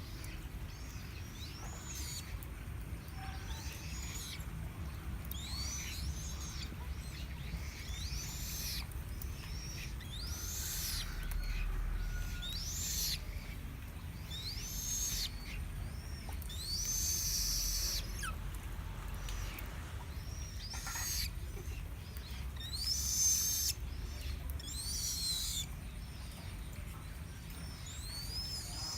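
A chích cồ bird calling over and over, a short high arching note every one to two seconds.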